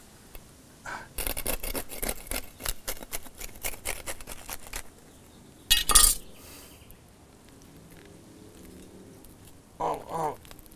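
Knife sawing through a baked sub on a super crispy French roll: a rapid run of crackling crunches from the crust for about four seconds, then one loud clatter about six seconds in. A short vocal sound comes near the end.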